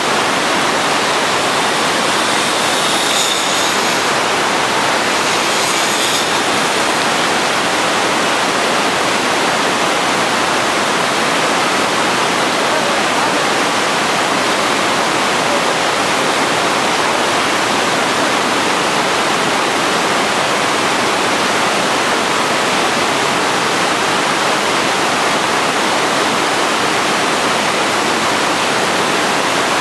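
White-water river rapids rushing steadily: a loud, constant wash of water noise.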